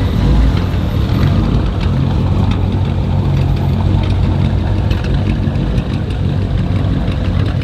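A hot-rodded 1957 Chevrolet Bel Air's engine idling steadily, with a low, even exhaust note.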